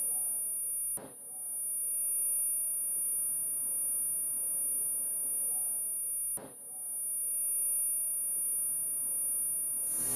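Steady high-pitched ringing tone over a soft hiss, an ear-ringing style sound effect; it is broken by a click twice, about a second in and about six seconds in.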